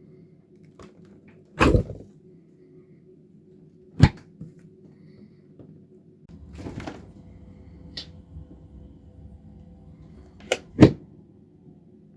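Refrigerator and freezer doors being opened and shut, with several thuds and clicks of the doors and their seals over a steady low hum. The loudest thud comes about two seconds in, and there is a quick double thump near the end.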